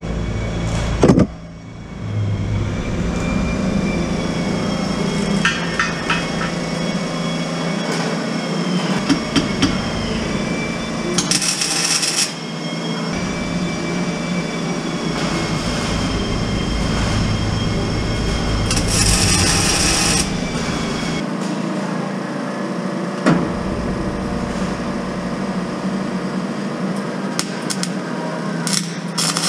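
Metalworking shop noise over a steady low hum, with a few sharp knocks and two short bursts of hiss.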